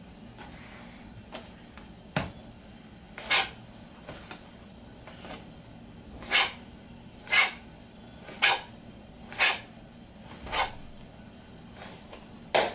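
Chef's knife slicing pork loin into thin strips on a plastic cutting board, the blade knocking sharply on the board about once a second.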